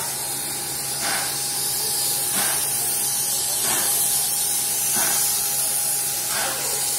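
Steam hissing steadily from the standing streamlined C38-class steam locomotive 3801, with a steady tone under it and a faint beat repeating about every second and a quarter.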